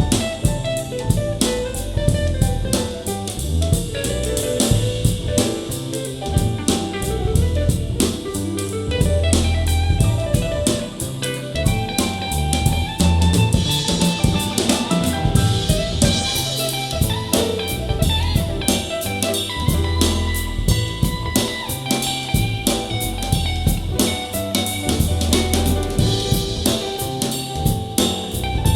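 Soul jazz music with a steady drum-kit groove of snare rimshots and bass drum under a bass line and melodic instruments, recorded through an in-ear monitor for a sound comparison.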